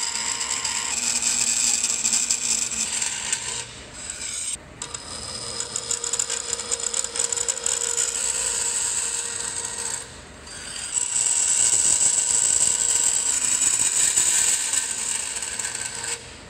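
Vertical bandsaw cutting a thin coated steel plate, the blade running steadily through the metal with a high hiss and several steady tones. It eases off briefly about four seconds in and again about ten seconds in.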